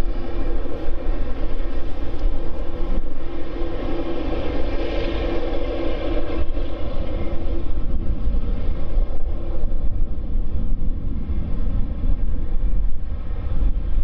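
Boeing 787-9's GEnx turbofan engines running as the jet taxis: a steady whine over a low rumble, loudest about five seconds in.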